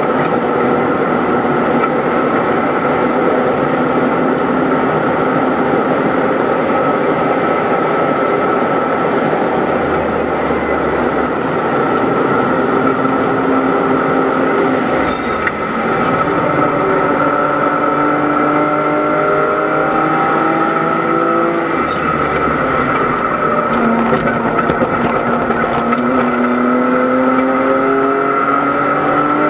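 BMW E90 325i race car's inline-six engine running hard at high revs, heard from inside the cabin over wind and tyre noise. The engine note breaks briefly about 15 seconds in and again about 22 seconds in, climbing in pitch after each.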